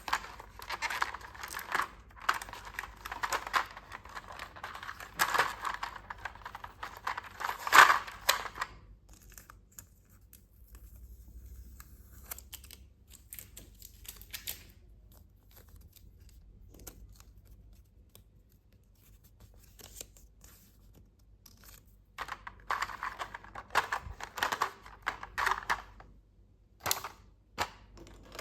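Toy packaging being unwrapped by hand: dense crackling and crinkling of plastic and paper, with tearing and small clicks. The handling is busy for about the first nine seconds, drops to scattered taps and clicks, then picks up again about three quarters of the way through.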